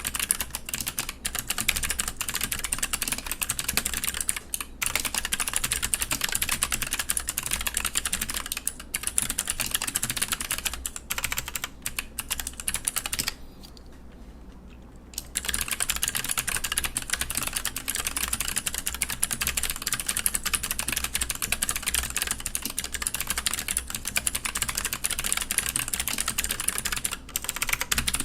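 Fast, continuous typing on a VE.A split mechanical keyboard with Gateron Green switches fitted with Aristotle stems and GMK Hyperfuse keycaps. There is a pause of about two seconds around the middle.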